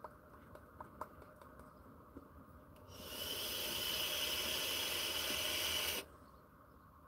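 Vape mod fired during a long draw: a steady hiss that starts about three seconds in, lasts about three seconds and cuts off sharply. A few light clicks come before it.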